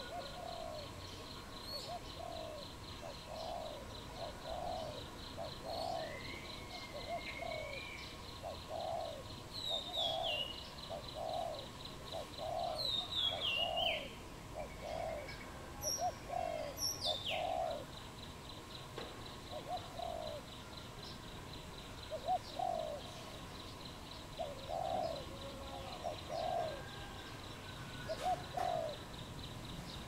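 A dove cooing: a long series of short, soft coos, about three every two seconds, that breaks off briefly a few times in the second half. Behind it runs a steady high, fast-pulsing drone, and a few quick falling whistles come from other birds.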